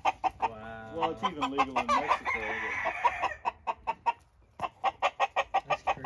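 A flock of chickens clucking in quick short notes, several a second. A rooster crows in the first half.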